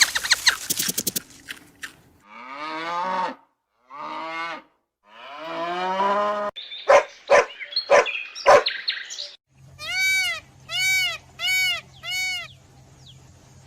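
A run of animal calls: cows mooing in three drawn-out calls, then a cluster of short sharp calls, and near the end four evenly spaced high-pitched calls.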